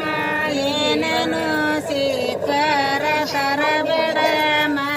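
Women singing a Kannada folk grinding-stone song (beesokallina pada), a steady, chant-like melody that runs on without a break.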